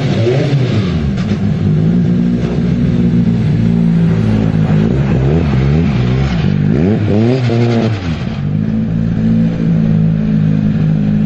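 Formula race car engine running at a steady speed, with quick rev blips that rise and fall about five seconds in and again about seven seconds in.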